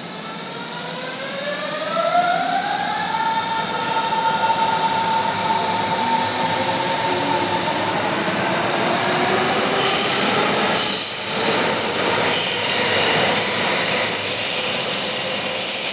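Berlin S-Bahn electric train: a whine with several overtones rises in pitch over the first three seconds, then holds steady. High-pitched squealing joins in from about ten seconds in.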